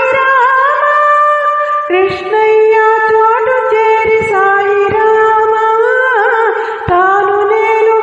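A woman singing a Telugu devotional song to Sai Baba, holding long notes with small turns in pitch between them.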